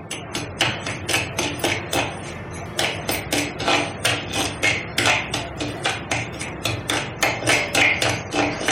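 Perforated steel ladle scraping and knocking against a clay kadai while semolina is stirred and roasted in ghee, in quick, regular strokes several times a second.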